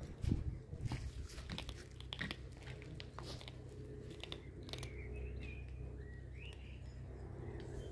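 A kitten crunching dry kibble, with many short, crisp crunches of chewing, thickest in the first few seconds.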